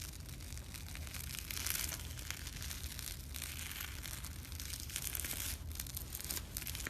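Slime being squeezed and pressed by hand: a dense, fine crackling and popping of many small clicks that swells and eases.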